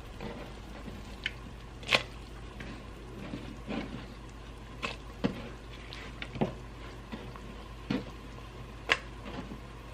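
Irregular knocks and clicks of kitchen work as onion is added to a pot of simmering beef, the sharpest about 2 s and 9 s in, over a steady low hum.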